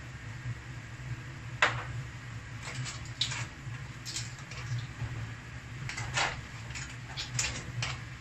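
Metal spoon scraping and clinking against a frying pan as a cream sauce is stirred, in short irregular strokes over a steady low hum.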